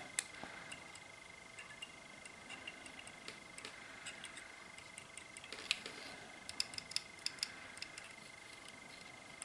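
Faint, scattered small ticks and clicks from soldering a fine wire lead onto a small circuit board, coming more often in the second half, over a faint steady high whine.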